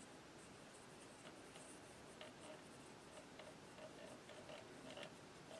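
Kokuyo mechanical pencil writing on planner paper: faint, irregular scratching of the lead as a word is written out in cursive.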